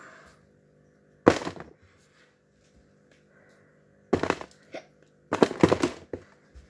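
Fidget toys dropped into a box, clattering: one sharp clatter about a second in, then two longer bursts of rapid knocks about four and five seconds in.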